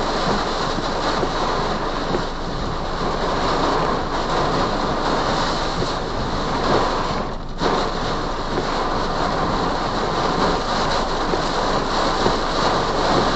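Heavy wind-driven rain of a severe thunderstorm beating on a car, heard from inside the cabin as a steady dense rush of noise.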